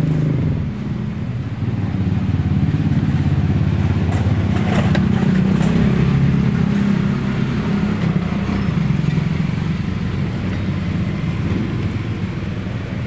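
A motor vehicle's engine running steadily close by, a low even hum that holds its pitch without revving, with a few faint clicks partway through.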